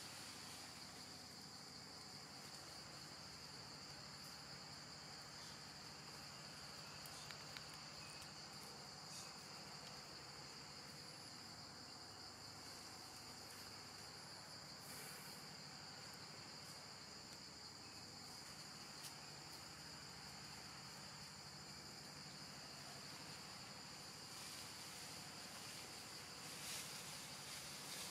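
Faint, steady high-pitched drone of an insect chorus, with a few faint clicks here and there.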